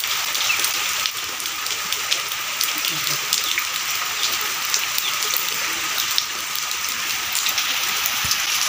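Steady rain falling, a constant hiss with many small separate drop hits in it.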